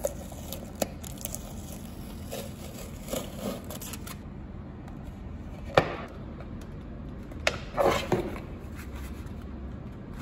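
Aluminium foil tape peeled off a hard plastic bowl with a crinkling, scraping sound, then the bowl handled and knocked down onto the tabletop, with about three sharp plastic knocks in the second half.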